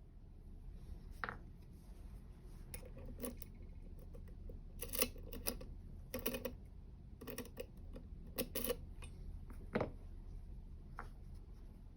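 Small metal clicks and taps from picking tools working inside a three-row dimple lock, coming irregularly, some in quick clusters.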